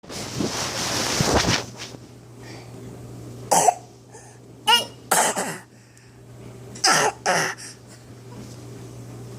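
A person putting on a fake cough: a string of about five short, sharp coughs, after a stretch of rustling noise at the start.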